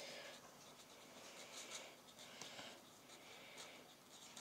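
Faint scratching of a pen writing on paper.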